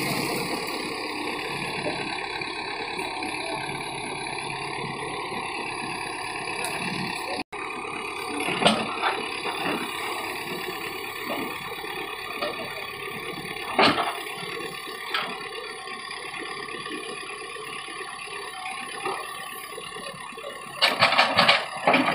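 Bobcat backhoe loader's engine running steadily while the backhoe digs. A few sharp knocks are heard along the way, and there is a short burst of louder, choppy noise near the end.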